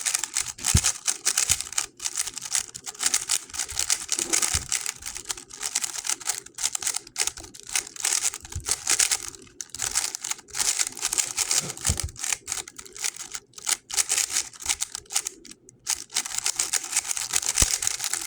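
GAN 11 M Pro magnetic speedcube being turned fast during a solve: a dense run of rapid clicking turns, broken by a few brief pauses.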